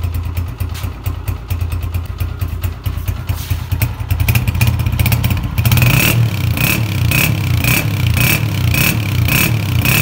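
Honda CG 125 kick-start model's single-cylinder four-stroke engine running at its stock exhaust, idling and then running faster and louder from about four seconds in. From about six seconds in, a short high chirp repeats about twice a second over the engine.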